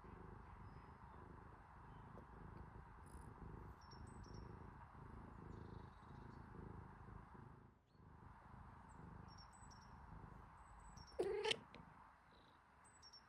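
Cat purring, a low, fine pulsing rumble that drops out briefly about eight seconds in, with one short meow just after eleven seconds.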